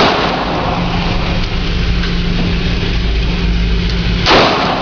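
Two gunshots about four seconds apart, the first at the very start and the second near the end, each followed by a drawn-out reverberating tail, over a steady low hum and rumble.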